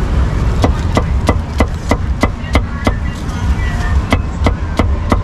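Cleaver chopping cucumbers on a thick wooden chopping block: sharp knocks about three a second, a pause of about a second midway, then more chops near the end, over a low steady rumble.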